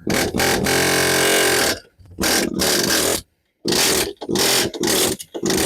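Impact wrench hammering in repeated bursts, a long one of about two seconds followed by several shorter ones, working loose a wheel bearing hub held fast by corrosion.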